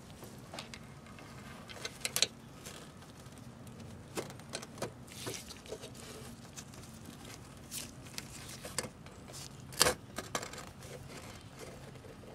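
Gloved hands handling parts in a car's engine bay behind the headlight: scattered rustles and sharp clicks and knocks, the loudest about two seconds in and again near ten seconds.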